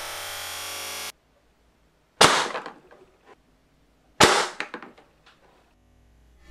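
Two sharp shots about two seconds apart from a Super Soaker HydroCannon dart blaster charged to high pressure by two 12-volt tire compressors. Each shot is followed by a short, fading clatter as the dart strikes the cardboard box target.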